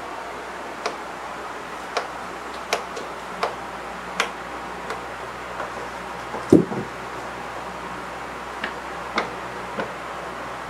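Two cats wrestling on a hardwood floor: scattered sharp clicks of claws and paws striking the boards, and one duller, louder thump a little past halfway as a body hits the floor, over a steady hiss.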